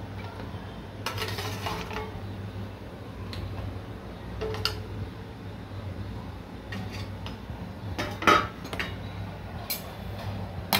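A metal ladle knocking and scraping against a metal cooking pot and a steel plate, with several separate clinks, the loudest about eight seconds in, as stuffed crabs are spooned into boiling curry. A steady low hum runs underneath.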